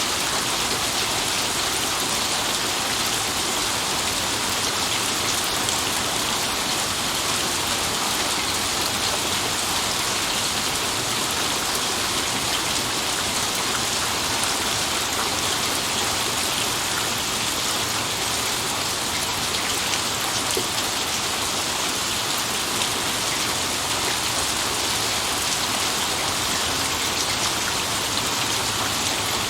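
Steady rain falling and pattering on a surface, an even hiss of many drops with no thunder.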